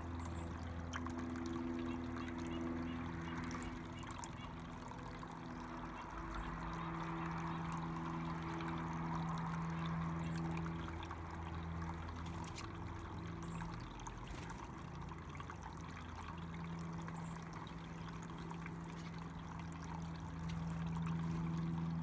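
Small electric tabletop cascade fountain running, water trickling and splashing steadily from spout to bowl, with a steady low hum underneath.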